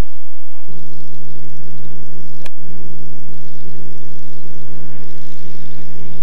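A loud, steady low hum of several fixed pitches sets in a little under a second in and holds without change. A single sharp click cuts through it about two and a half seconds in.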